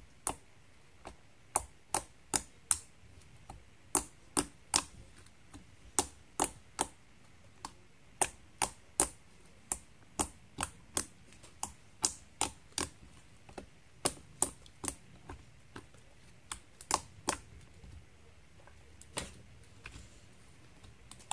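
Slime, slightly stiffened after five minutes in a freezer, being poked and pressed with fingers, giving a string of sharp, irregular clicks and pops, about two a second.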